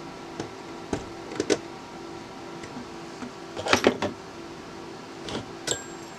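Scattered small clicks and clatters of hands working on a rotary telephone's parts with small tools, the busiest cluster a little past the middle, over a steady low hum.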